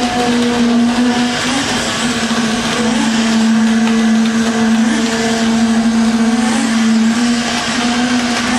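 A machine motor running steadily, a constant hum with overtones over a wide noisy rush, wavering slightly but never stopping.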